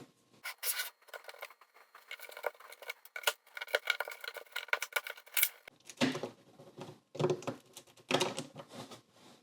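LEGO bricks and plates being pried apart and handled: many rapid, irregular plastic clicks and clatter, with a few louder clusters of clicks in the second half.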